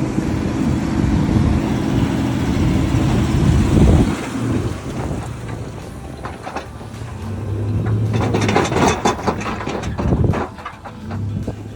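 Vehicle engine running, loud for about four seconds before it drops off suddenly, then building up again later with scattered knocks and rattles.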